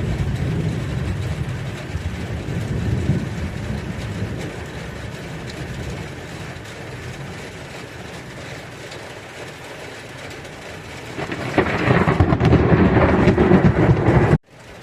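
Thunderstorm: thunder rumbling low and fading away over steady rain, then a louder, closer peal of thunder near the end that cuts off suddenly.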